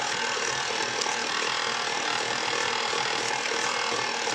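KitchenAid stand mixer running steadily, its beater churning thick cheesecake batter in a stainless steel bowl.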